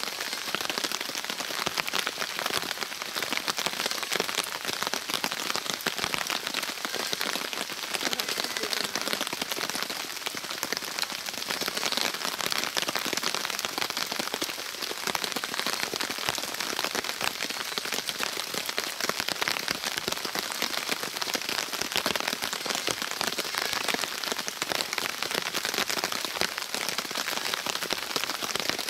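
Rain falling steadily, a dense patter of many small drop hits.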